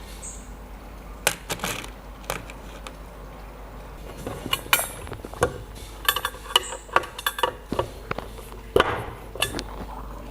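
Small metal parts and tools being handled on a workbench: irregular sharp clicks and clinks, more frequent in the second half.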